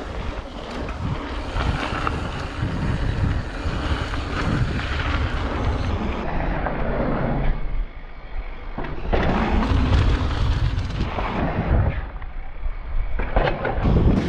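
Wind buffeting the microphone while a Scott Genius full-suspension mountain bike rolls fast down a dirt trail, with tyre noise and rattles and knocks from the bike over bumps. It eases briefly about eight seconds in and again near twelve seconds.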